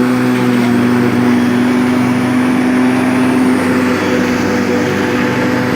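Corded electric lawn mower motor running steadily at a constant pitch, a loud even hum with a whine above it.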